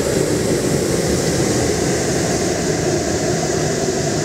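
Hot-air balloon propane burner firing in one long, steady blast into the envelope's mouth during hot inflation, a loud rough burning roar with a hiss above it.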